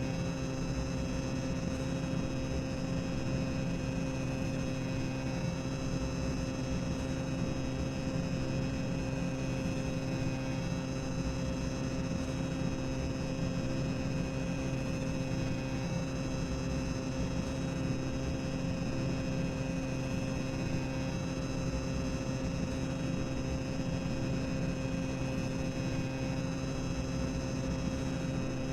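Tower of Terror boiler room ambient sound effect: a steady machinery hum and low rumble with several held tones, unchanging throughout.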